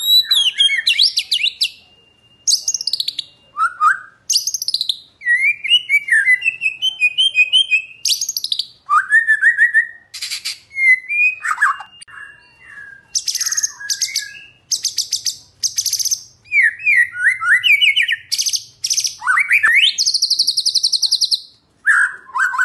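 White-rumped shama (murai batu) singing loudly in varied phrases: sliding whistles alternate with fast rattling trills and chatters, with a few short pauses between bursts.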